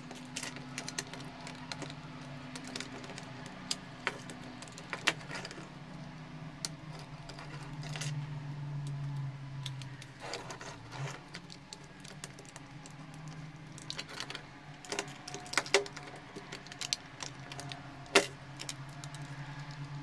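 Small plastic clicks, taps and rattles from a Nikon SB-800 Speedlight's casing and internal parts being handled and worked apart by hand, with a low steady hum underneath. Sharper knocks stand out around a quarter of the way in and twice near the end.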